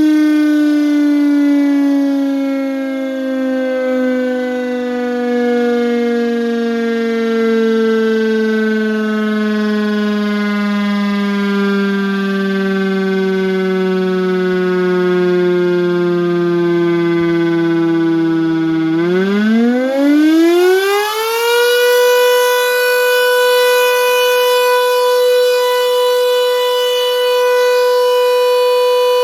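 Secomak CS8 siren sounding one loud pitched wail. It slides slowly down in pitch for most of the time, then about nineteen seconds in it climbs quickly and holds a steady higher tone.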